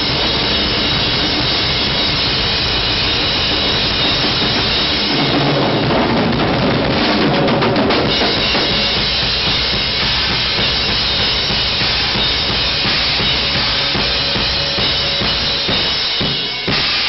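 Live drum solo on a full rock drum kit: bass drum, snare and cymbals played continuously and loud, with a brief break into a few separate hits near the end.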